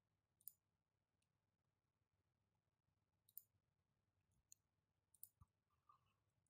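Near silence with a handful of faint, sharp computer clicks spread across it.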